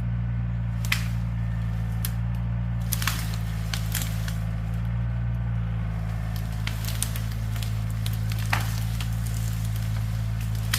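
Mini excavator's diesel engine running steadily, with scattered sharp cracks and snaps of wood and brush.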